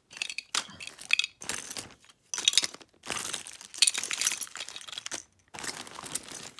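Hands rummaging through a pile of plastic party-favor toys in cellophane bags: plastic packaging crinkling and hard plastic toys clinking and clattering against each other in a run of short bursts.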